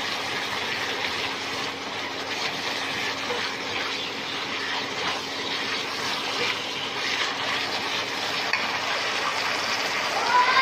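Minced pork stir-frying in a nonstick wok: a steady sizzle, with the soft scrapes of a silicone spatula turning the meat against the pan.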